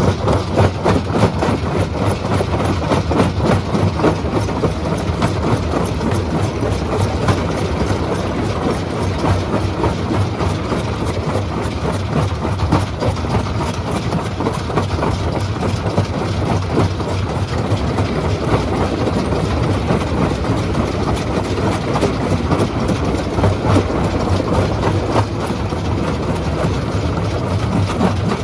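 Stone crushing machine running, a steady low drone under a dense, continuous clatter of rock being broken.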